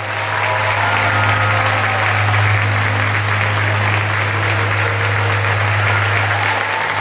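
Audience applauding steadily in a large hall, over a steady low hum.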